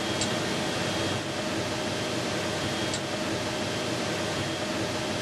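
Steady hum and hiss of a space station's cabin ventilation fans and equipment, with a couple of faint high ticks, one near the start and one about three seconds in.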